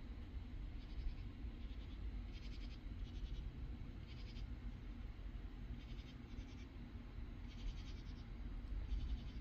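Katydids calling: short rasping chirps repeating at irregular intervals of about a second, over a steady low background rumble.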